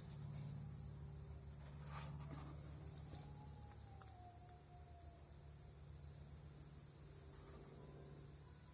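Quiet background with a steady high-pitched whine and a low steady hum, a couple of faint clicks about two seconds in.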